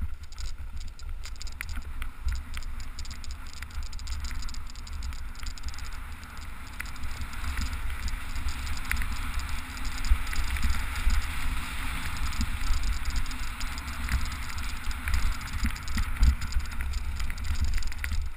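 Peter Lynn Comp XR kite buggy rolling over grass, its wheels and frame rattling and knocking, with a heavy rumble of wind on the camera's microphone. The noise gets louder about halfway through as the buggy picks up speed.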